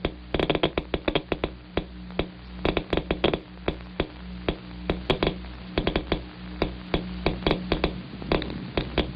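Radiation counter clicking at random, several clicks a second. These are the gamma rays from a cobalt-60 source that get through a 1-inch lead barrier, which absorbs most of them.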